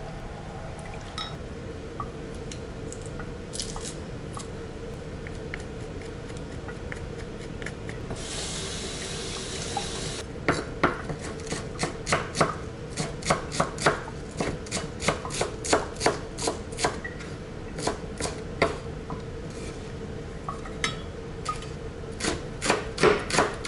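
Chef's knife chopping green onions on a wooden cutting board, steady sharp strokes about two a second from about ten seconds in, with a short lull and then a faster run near the end. Before that, a few light clinks of a spoon and glass.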